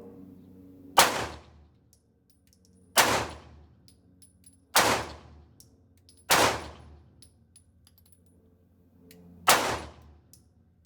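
Five single shots from a 9mm semi-automatic handgun, fired at uneven intervals of about one and a half to three seconds. Each sharp report is followed by a short ringing decay.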